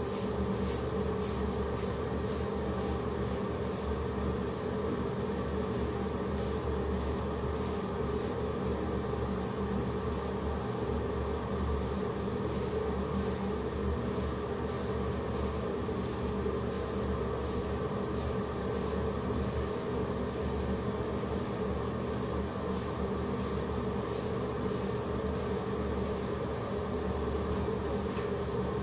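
Electric hair clippers buzzing steadily as they cut hair, with a rapid, crisp rasping from the blades running through the hair.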